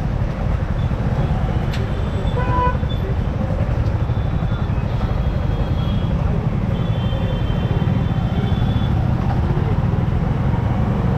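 Riding a Yamaha R15 M motorcycle through road traffic: a steady low rumble of engine and wind. A vehicle horn honks briefly about two and a half seconds in, and a thinner horn-like tone sounds again about seven seconds in.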